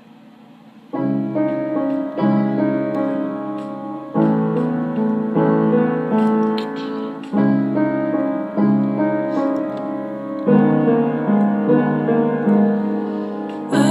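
Piano playing a slow introduction of chords, the notes changing about once a second. It starts about a second in, after faint room tone.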